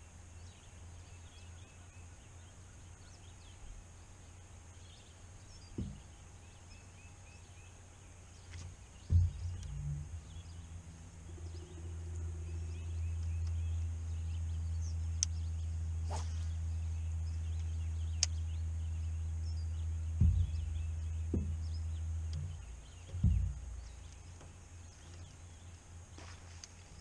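Bow-mounted electric trolling motor running for about thirteen seconds with a steady low hum, starting about nine seconds in and stopping a few seconds before the end. A few short thumps sound around it.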